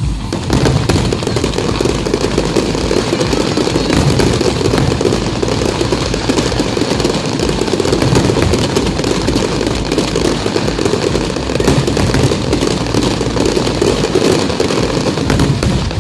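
Fireworks going off in a dense, continuous barrage of crackles and bangs.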